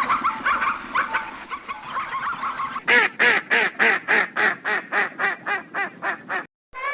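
Waterfowl calling: first a flock honking over one another in a dense chatter, then, about three seconds in, a steady run of separate honks at about four a second.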